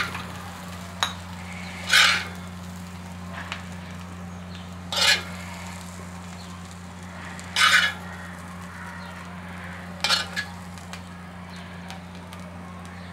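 Slotted steel spoon scraping fried potatoes across an iron tawa, five short scrapes two to three seconds apart, over a steady low hum.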